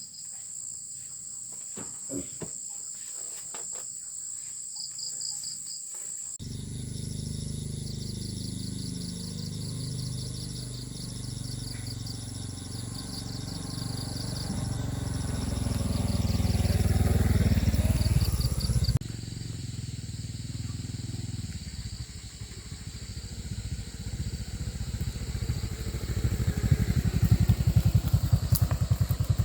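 Insects chirping steadily for about six seconds, then a small engine running, growing louder with a sweep in pitch near the middle. After a break, an engine throbs again and builds up near the end.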